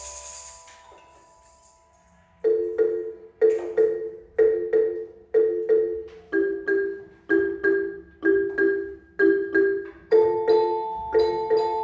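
Student-played instrumental music on mallet percussion of the xylophone kind. One section dies away into a moment of near silence, then a new one starts about two and a half seconds in: a repeating pattern of struck notes in pairs, about two strikes a second, joined near the end by a higher held tone.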